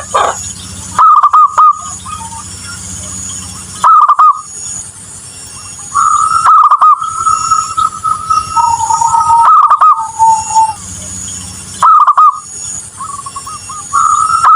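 Zebra dove (perkutut) cooing: a short, bubbly coo phrase repeated every few seconds, the loudest calls very loud. Longer held notes come between the phrases, over a steady faint high hiss.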